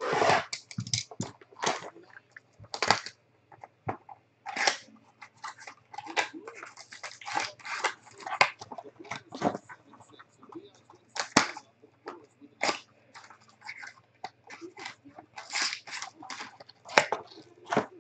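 Plastic shrink-wrap crinkling and cardboard rustling in irregular bursts as sealed trading-card boxes and packs are cut open and unwrapped by hand.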